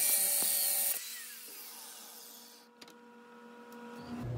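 Corded angle grinder cutting through a steel pin held in a vise. About a second in the cut stops and the grinder's motor winds down, its whine falling in pitch over the next couple of seconds, followed by a single light knock.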